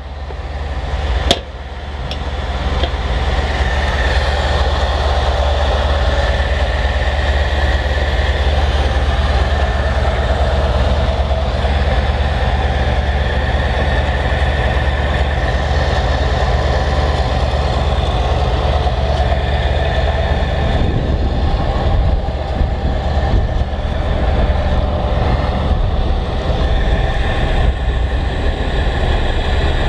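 Ford F-350's 460 cubic-inch gasoline V8 idling, a steady low drone. A single sharp knock about a second in.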